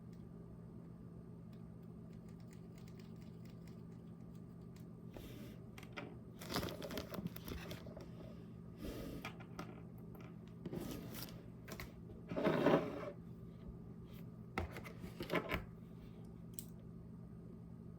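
Handling noises in several short bursts of rustling, scraping and tearing-like sound, the loudest about two-thirds of the way in, over a steady low hum.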